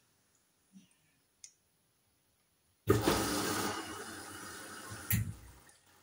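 Hoover front-loading washing machine drum turning at the start of a wash: a sudden rush of sloshing water and tumbling wet laundry over a low motor hum, fading over about two seconds and ending in a thud as the load drops. Two faint clicks come before it.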